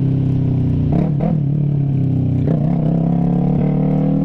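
Yamaha MT-03's parallel-twin engine running through a straight-piped exhaust with no silencer, as the bike rides along at a steady pace. Its pitch wavers briefly about a second in and again a little past halfway.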